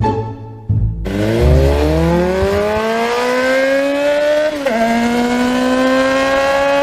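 A motor vehicle engine revving up, its pitch climbing steadily. About four and a half seconds in the pitch drops briefly, like a gear change, then it runs on and rises slowly again.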